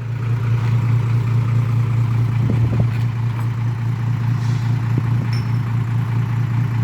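Vehicle engine idling steadily with a low, even drone, with a few faint clicks partway through.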